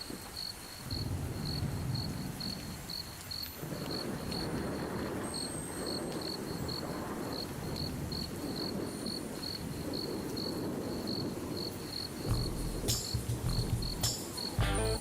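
A cricket chirping steadily, short high chirps at about two and a half a second, over a low rustling noise. Music with a beat comes in near the end.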